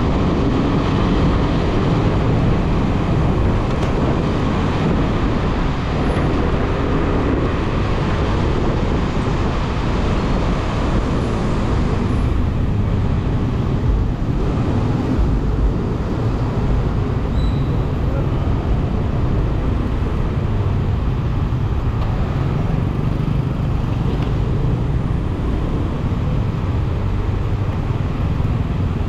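City road traffic heard from a moving motorbike: a steady mix of engines and tyres, mostly low rumble, with no single event standing out.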